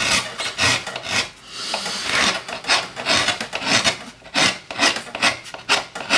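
Hand gouge cutting a woodcut block: quick, irregular scraping strokes, a few a second, as the blade plows out wood chips, with one longer cut about two seconds in.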